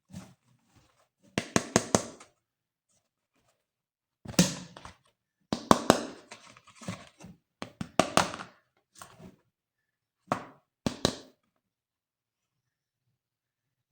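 Hard plastic toys being handled during unboxing: irregular clusters of sharp knocks, taps and clicks, separated by short quiet gaps.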